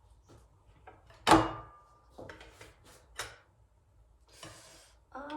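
Kitchen handling noises: one loud knock with a brief ring about a second in, followed by a few lighter clicks and a short rustle.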